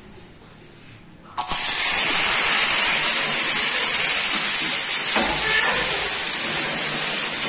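Cooked white beans poured into hot oil in a skillet, the start of frying them for refried beans. The loud, steady sizzle starts suddenly about a second and a half in and keeps up.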